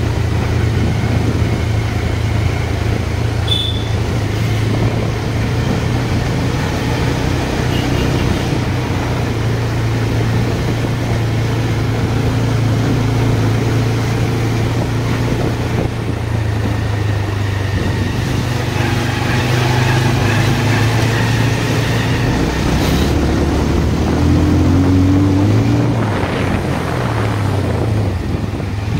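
Motorcycle engine running steadily while riding along a forest road, with a low steady hum; the engine note rises briefly a few seconds before the end.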